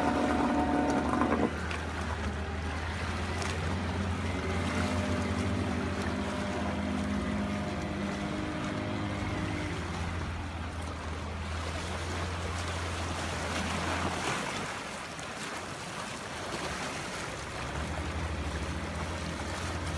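Outboard motors of small skiffs running on the water, a steady low drone. It fades for a few seconds about two-thirds of the way through, then comes back near the end. Light wind and water noise lie underneath.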